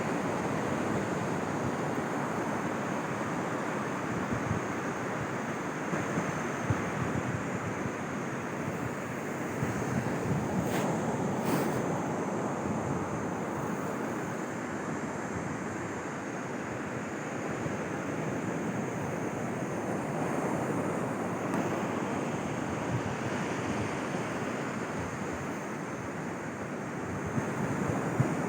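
Sea surf washing steadily onto a sandy beach, swelling and easing slowly, with wind buffeting the microphone.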